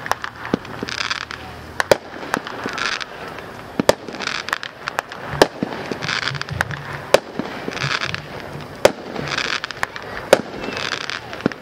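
Consumer fireworks cake firing shot after shot: sharp bangs at irregular intervals, with a short hissing, crackling burst every second or two.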